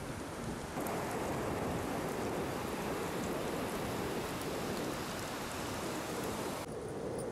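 Steady rushing noise of wind on the microphone and surf breaking on the shore, with no distinct events; it gets louder about a second in.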